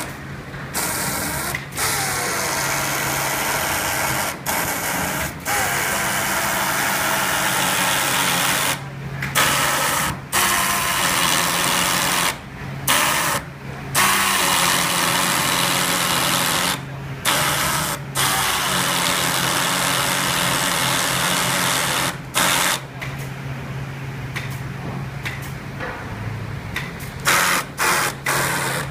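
Factory workshop machinery noise: a loud steady hiss over a low hum, broken several times by abrupt, brief silences.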